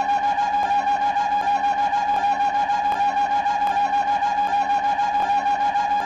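Cartoon mouse's high-pitched, reedy vocal noise, one held note wavering quickly and evenly and looping without a break, with a faint tick about every three-quarters of a second.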